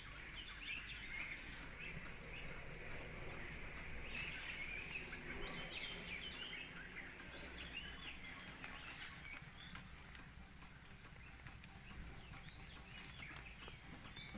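Small birds chirping repeatedly over a steady very high insect-like drone that fades out about halfway through, with a low rumble underneath.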